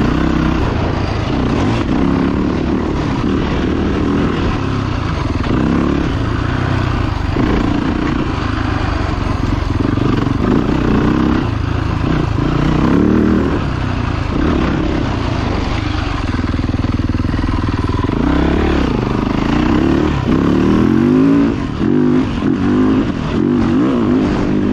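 Dirt bike engine running hard and revving up and down as the throttle is worked, its pitch repeatedly rising and falling. Near the end the throttle is blipped in short, choppy bursts.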